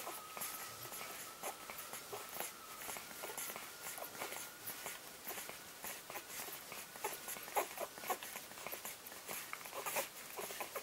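A litter of 11-day-old English Springer Spaniel puppies suckling at their mother: many small, irregular wet clicks from their nursing.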